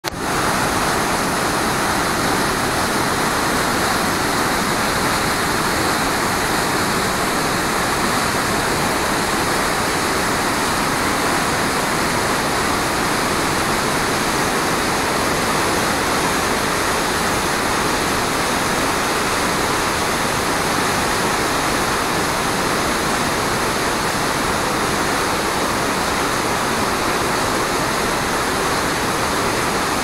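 The Merced River in powerful high flow, whitewater rapids rushing over and around boulders just below the bridge: a loud, steady rush of water with no let-up.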